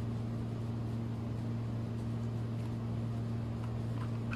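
A steady low hum with an even hiss over it: the room's constant background noise. A few faint ticks come near the end as the small plastic mic receiver is handled.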